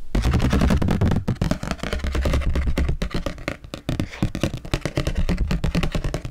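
Fingertips and nails tapping and scratching rapidly on a stiff sheet of edible colored paper close to the microphones: ASMR tapping, a dense run of quick clicks with soft low thumps.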